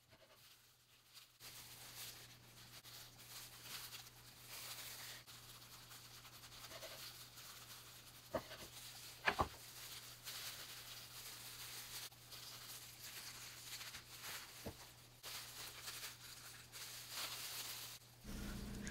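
Faint kitchen-knife cutting and handling on a bamboo cutting board as soft potato pancake rolls are sliced, with a few sharper knocks of the knife on the board about eight, nine and fifteen seconds in.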